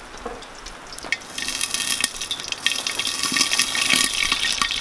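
Fish patties sizzling and spattering in hot oil inside a lidded cast-iron Dutch oven, a dense crackle that swells about a second and a half in. The spitting is the moisture from the patties hitting the oil.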